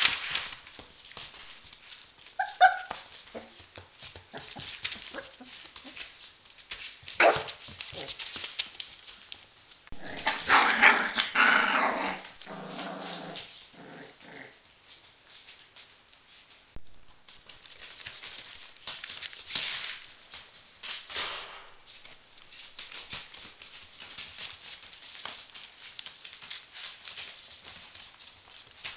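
Four-week-old Border Collie puppies playing on newspaper, their paws and tussling making a constant crackly rustle. One puppy vocalizes briefly a couple of seconds in and again for a few seconds near the middle.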